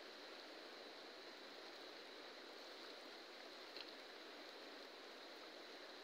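Faint, steady rushing of a river flowing, with a thin high whine held over it and a single small click a little under four seconds in.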